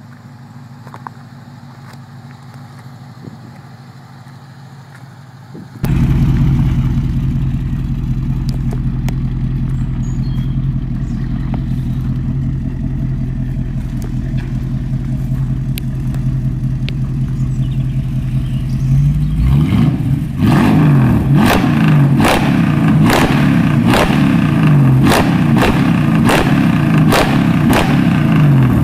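Jensen Interceptor's 7.2-litre V8 running, first faintly at idle, then loud and steady after a sudden jump about six seconds in. From about two-thirds of the way through it is revved in short blips, about one a second.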